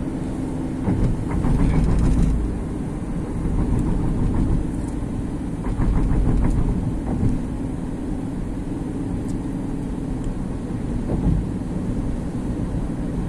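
Road noise inside a car cruising on a highway: a steady low rumble of tyres and engine, swelling louder twice, about a second in and again around six seconds, with a few light knocks.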